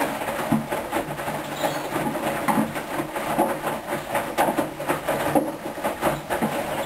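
Hoover washing machine in its first rinse: the drum turning, with water sloshing and laundry tumbling in irregular knocks over a low motor hum that comes and goes.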